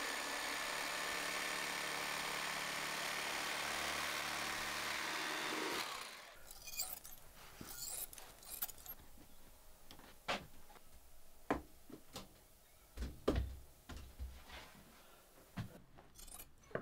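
A small motor runs steadily for about six seconds, then stops. After that come scattered soft snips and clicks of large shears cutting batting and fabric.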